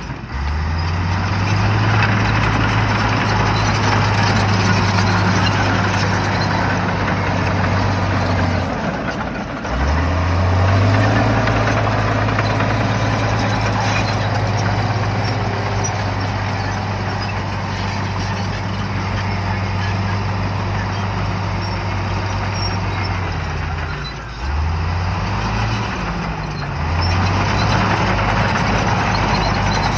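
Shantui bulldozer's diesel engine running hard over a wash of mechanical noise. The engine note briefly drops and then climbs back up, near the start, about a third of the way in, and twice near the end.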